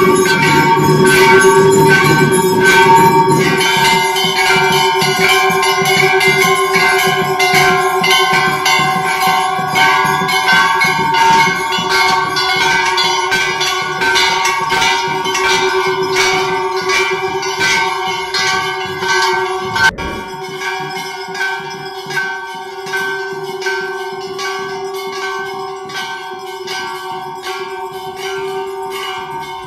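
Temple bells rung rapidly and without pause for the aarti: repeated metal strikes over a steady lingering ring. A low rumble sits under the first few seconds, and the level drops suddenly about twenty seconds in.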